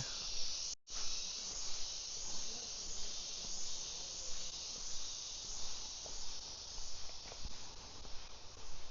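Steady, high hissing drone of insects in the jungle, unbroken apart from a short gap about a second in.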